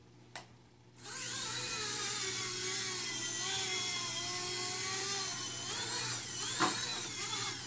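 Blade mSR X micro RC helicopter lifting off and flying: its small electric motors and rotor give a high-pitched whine, like a bumblebee, that starts about a second in and wavers up and down in pitch.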